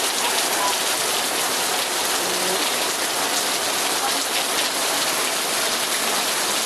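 Heavy rain pouring steadily, raining real hard: a dense, even hiss of countless drops hitting surfaces, without a letup.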